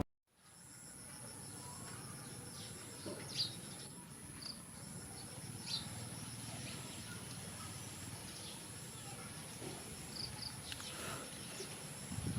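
Outdoor insect chorus: a steady high-pitched drone with a fast, evenly pulsing chirp beneath it, and a few brief louder chirps scattered through.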